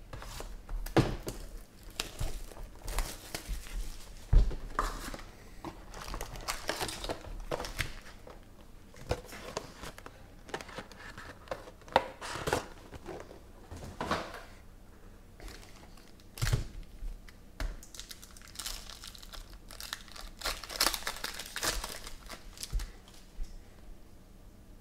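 Foil trading-card packs crinkling and tearing as they are handled, pulled from the box and ripped open, in irregular rustling bursts. A few dull thumps, the loudest about a second in, about four seconds in and past the middle, stand out among them.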